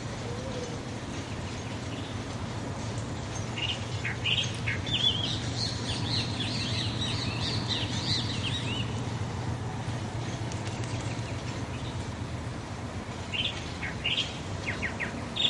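Small birds chirping in two bouts of quick, high chirps, the first a few seconds in and the second near the end, over a steady low hum.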